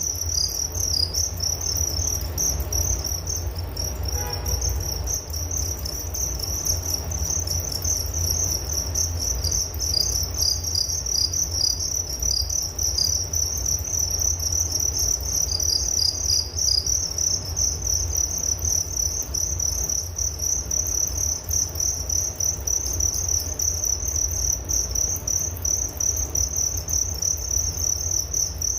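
Crickets chirping in a steady, unbroken chorus of rapid high-pitched pulses, over a low rumble.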